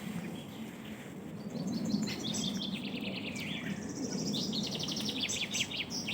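Songbirds singing in woodland: two rapid trills of high notes, the second stepping down in pitch and ending near the end, over a steady low background rumble.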